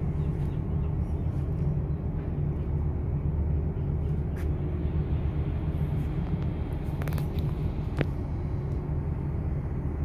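Steady low hum of a ship's machinery, with a few faint clicks.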